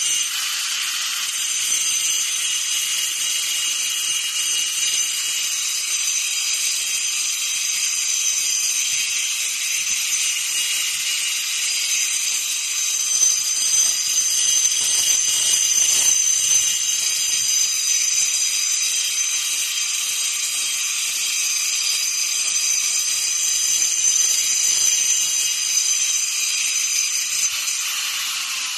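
Handheld power tool carving into a stone boulder: a steady high-pitched whine over a hiss, running without a pause.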